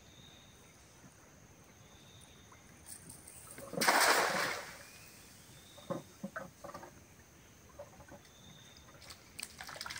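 A cast net thrown from a small wooden boat lands on the creek water about four seconds in: a single splash and spray lasting about a second. A few short knocks follow a couple of seconds later.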